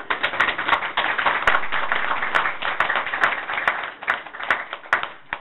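Applause: a group of people clapping, starting suddenly and thinning out to a few scattered claps near the end.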